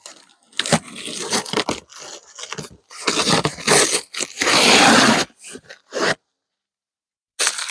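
A cardboard shipping box being torn open: a run of tearing, crunching and scraping bursts, the longest and loudest a little past halfway, stopping about six seconds in.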